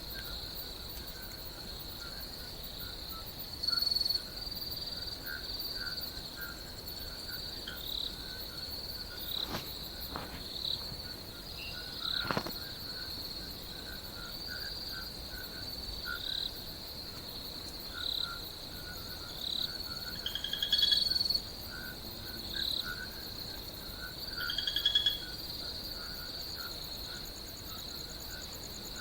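Outdoor chorus of insects and frogs: a steady high-pitched insect trill with short repeated chirping calls every second or two, a few louder near the start, about two-thirds of the way in and near the end. A couple of sharp clicks sound near the middle.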